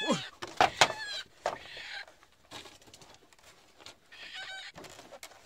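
Chickens squawking in alarm: harsh calls near the start, a few more in the first two seconds, and a quick run of calls about four seconds in.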